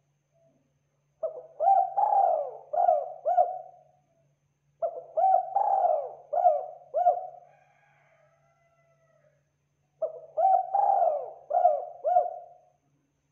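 Spotted dove (tekukur) cooing: three phrases, each a quick run of five or six coos, with short pauses between them.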